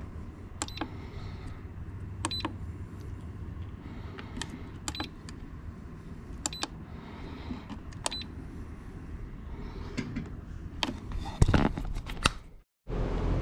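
Buttons pressed on a Masterbuilt digital electric smoker's control panel: several clicks spread over about ten seconds, most with a short high electronic beep. Near the end comes a louder cluster of handling knocks, then the sound cuts off.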